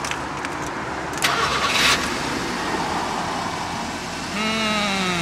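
Car engine starting and running, with a brief louder hiss about a second in and a louder pitched engine hum from about four seconds in.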